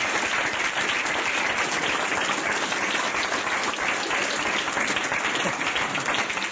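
Lecture audience applauding steadily at the close of a talk.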